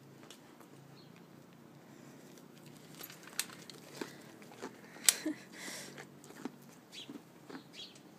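Goat biting and chewing a carrot: scattered sharp crunches starting about three seconds in, the loudest about five seconds in.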